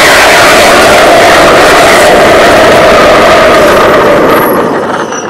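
Nitro-mix solid-fuel rocket motor firing on a static test stand: a loud, steady roar whose pitch sinks slowly, fading away over the last second or so as the burn tails off.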